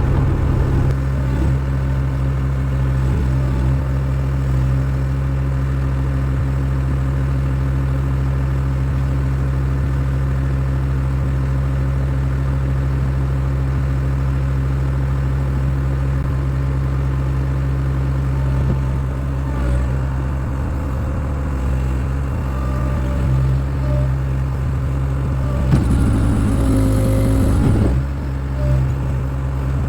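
Skid steer engine running steadily under load. Near the end there is a louder stretch of about two seconds with a hiss and changing pitch, as the machine works harder.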